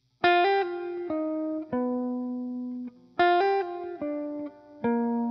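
Background music: a short phrase of plucked guitar notes, played twice, the second time ending on a held note.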